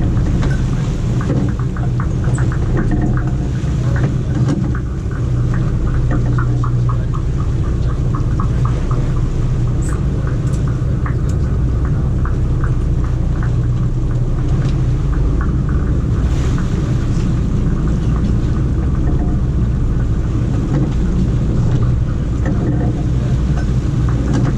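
Sportfishing boat's engines running with a steady low hum, with water rushing along the hull.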